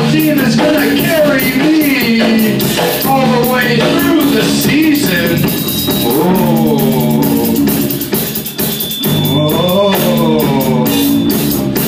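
Rock band jamming live: electric bass and drum kit playing, with a sliding, wavering melody line over them. The music eases off briefly about two-thirds of the way through, then carries on.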